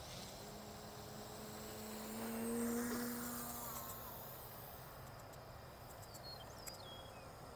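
Radio-controlled aerobatic biplane's motor droning in flight: a faint, steady, slightly rising note that swells about two to three seconds in as the plane passes, then fades.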